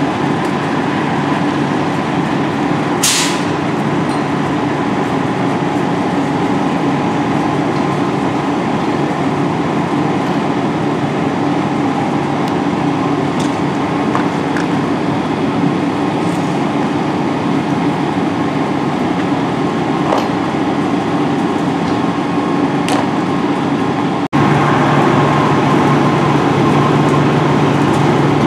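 Fire engine's diesel engine running steadily, a loud drone with a low hum. About three seconds in there is a brief hiss. Near the end the sound jumps louder and the low hum is stronger.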